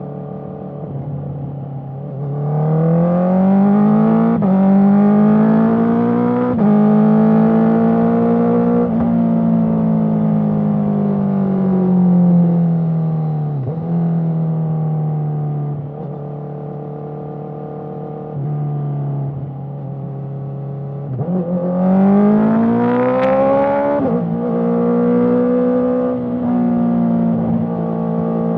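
Honda CBR650R's inline-four engine through an Akrapovic exhaust, accelerating in quick-shifter upshifts: the revs climb, dip briefly at each clutchless shift and climb again. It eases off and cruises steadily before pulling hard through the gears again near the end.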